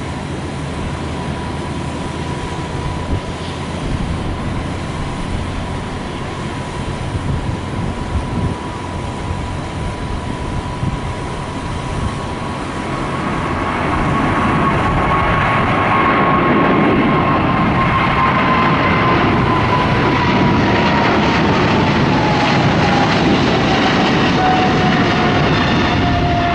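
Boeing 777-300ER's twin GE90 turbofans at takeoff thrust: a steady engine whine over a low rumble during the takeoff roll. It grows louder about halfway through as the jet lifts off and climbs past, and the whine then slides slowly lower in pitch.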